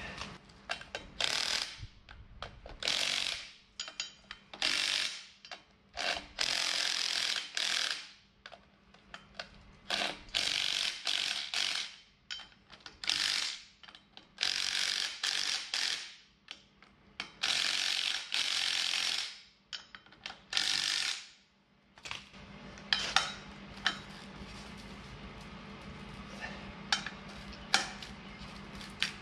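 Hand ratchet wrench clicking in repeated bursts as the bolts on the sweeper broom's end hub flange are turned, a dozen or so strokes of ratcheting over the first twenty seconds. After that it goes quieter, leaving a steady low hum with a few scattered clicks.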